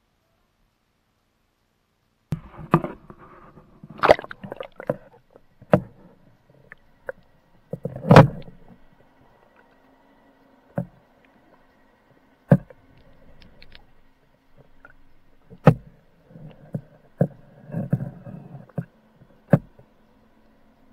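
Muffled knocks and bumps picked up by a camera in an underwater housing: a dozen or so sharp knocks at irregular intervals, the loudest about eight seconds in. Between them are stretches of water sloshing against the housing and a faint steady hum.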